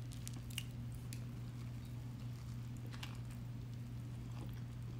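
Faint mouth sounds of biting into and chewing a soft white-bread sandwich, with a few small wet clicks, over a steady low hum.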